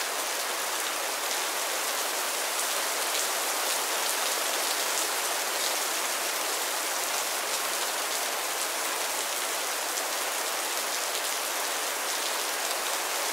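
Steady rain falling: an even hiss full of small drop ticks.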